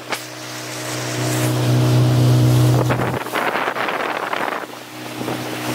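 Speedboat engine running with a steady drone that swells, then drops out about three seconds in, giving way to a loud rush of water and wind before the drone comes back near the end.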